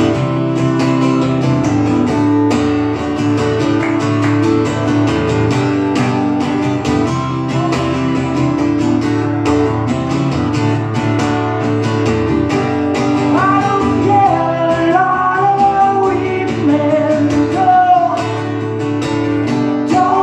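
Acoustic guitar strummed steadily, playing a song's instrumental intro. About 13 seconds in, a wavering higher melody line comes in over the strumming.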